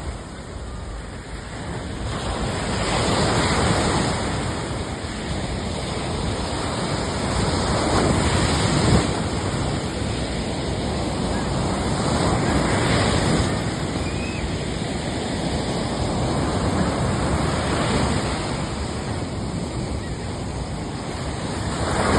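Surf rushing, swelling and easing every four to five seconds.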